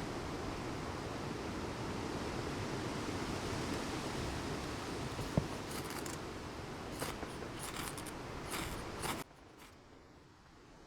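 Steady rain and wind noise, with a series of short scraping strokes from about halfway through: a knife shaving fine curls off a stick. The noise drops away abruptly about nine seconds in.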